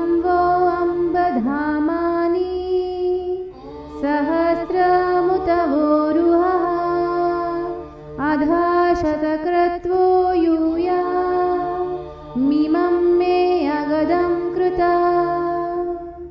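A woman chanting a Sanskrit Vedic verse in four melodic, gliding phrases over a steady drone.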